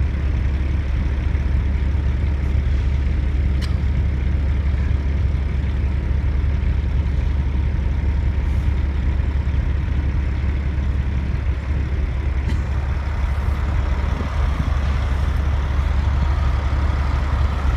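Steady low rumble of idling diesel semi trucks.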